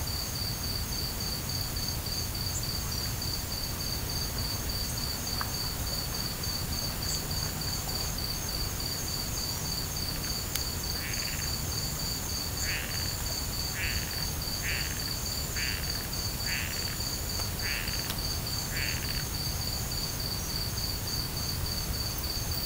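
Crickets chirring steadily in a fast, even pulse, with a frog croaking eight times, about once a second, starting about halfway through. A low background rumble lies underneath.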